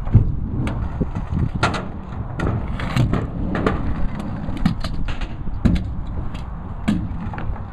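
Child's kick scooter rolling on skate park ramps: a steady rumble of small wheels on the ramp surface, broken by many sharp clicks and knocks from the wheels and deck hitting the ramp joints and edges.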